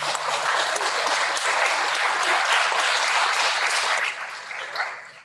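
Congregation applauding, many hands clapping together; the clapping thins out and dies away near the end.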